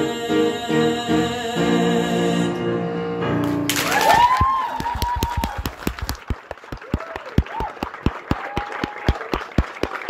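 The song's final chord is held and then dies away. About four seconds in, an audience breaks into cheers and whoops and keeps clapping, with loud, regular claps at about four a second.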